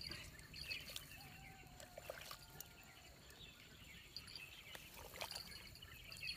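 Faint wet squelching and trickling of a hand working into a flooded, muddy eel hole, with scattered small splashes over quiet rural ambience.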